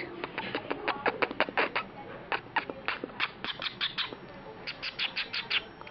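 Rapid, irregular run of short mouth clicks and lip smacks, several a second, made to soothe a newborn.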